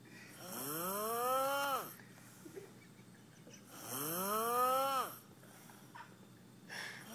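A man snoring in his sleep: two long snores about three and a half seconds apart, each rising in pitch and then dropping away. A third snore begins near the end.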